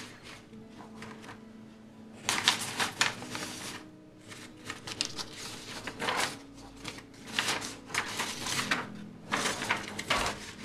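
Hands handling drawing materials: an irregular run of rustles and light clicks, with a sheet of paper being picked up near the end.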